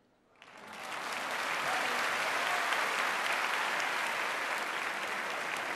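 A large audience breaks into applause about half a second in, rising within a second to loud, steady clapping.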